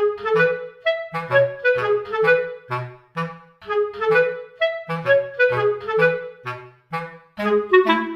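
Background music: a lively clarinet-led tune in short detached notes over a plucked bass line.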